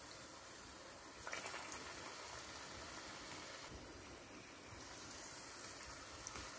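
Hot oil bubbling and sizzling faintly around gram-flour-battered dates deep-frying, growing a little louder about a second in.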